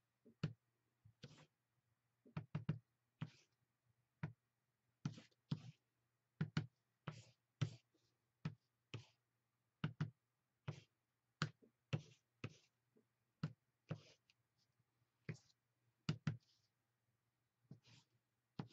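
Faint, irregular light knocks and taps, about one or two a second, as a small plastic tool is dabbed into acrylic paint on a palette and dragged across a paper journal page on a tabletop.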